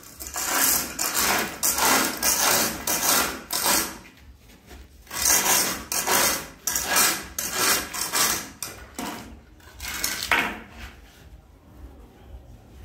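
Straightedge scraped back and forth across a sand-and-cement subfloor screed, rasping in repeated strokes about two a second, pausing briefly about four seconds in and dying down near the end: the mortar being screeded level.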